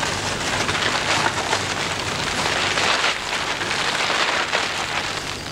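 Large black plastic sheet crackling and rustling as it is unfolded and spread out over the ground.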